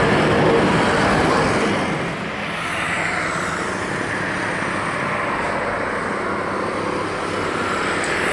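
Jet engine noise from Boeing 737-800 airliners' twin CFM56-7B turbofans at takeoff thrust: a steady, broad noise, with a brief drop in level about two seconds in as one climbing-out 737 gives way to another on its takeoff roll.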